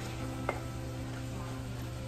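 Shrimp and vegetables sizzling in a wok while a wooden spatula stirs them, knocking sharply against the pan twice in the first half second. Soft background music plays alongside.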